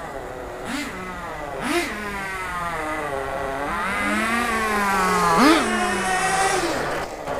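Small nitro-methanol engine of a 4WD RC car revving up and down as it is driven, with a quick sharp rev about five and a half seconds in.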